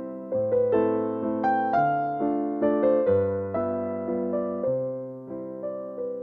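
Background piano music: a slow melody of struck notes that ring and fade over low bass notes, the chords changing every second and a half or so.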